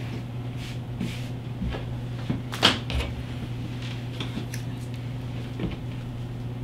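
Light handling noises, a few scattered clicks and rustles with the sharpest about two and a half seconds in, as pull strings are worked by hand on a cloth-wrapped handlebar on a table, over a steady low hum.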